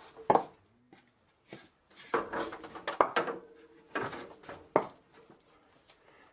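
Short, irregular knocks and scrapes of handling in a small room, a handful of separate bursts, some with a brief ring.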